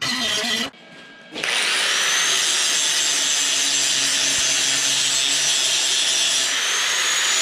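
Handheld angle grinder grinding steel: after a brief noisy burst at the start, the motor spins up about a second and a half in and grinds steadily, its whine rising as it comes up to speed and climbing again near the end.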